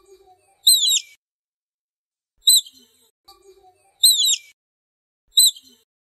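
Otter calls: high-pitched chirps about every second and a half, a short chirp alternating with a longer call that falls in pitch.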